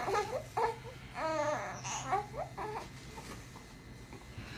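A baby babbling in short vocal sounds, the clearest a brief rising-and-falling sound about a second in, growing quieter toward the end.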